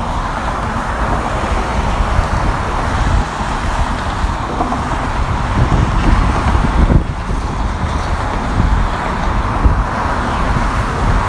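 Continuous road traffic noise from cars passing on the bridge's roadway.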